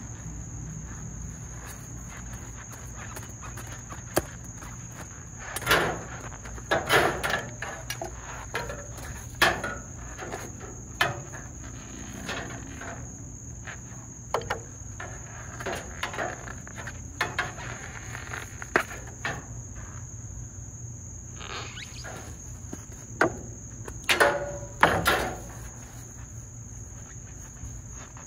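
Crickets chirring steadily and high-pitched, with irregular clicks, scrapes and knocks from handling scrap copper pipe. The loudest clusters come about a quarter of the way in and near the end.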